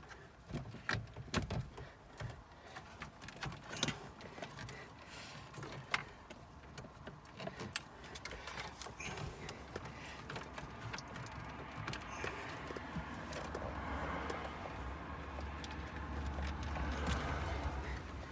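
Hands working plastic dashboard trim and connectors: scattered clicks and knocks, then a longer stretch of rubbing and rustling with a low rumble that grows louder near the end.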